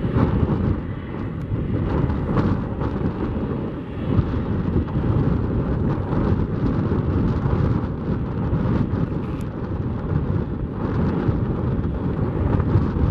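An Airbus A330-200's Rolls-Royce Trent 700 turbofan engines at taxi power, a steady low rumble that rises and falls slightly.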